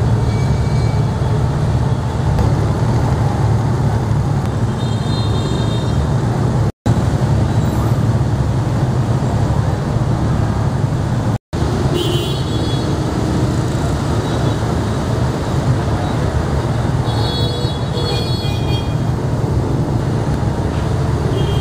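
Steady low rumble of street traffic, broken by two short silences, with a few faint high tones near the end.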